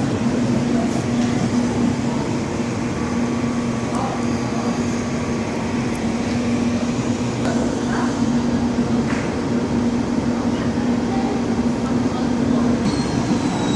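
An SBB ICN electric intercity train standing at the platform, humming steadily with one unchanging low tone over a general noisy rumble.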